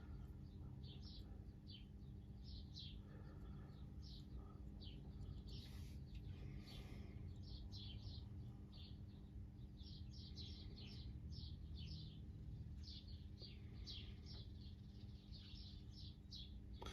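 Faint birds chirping: many short, high chirps repeating throughout, over a low steady hum.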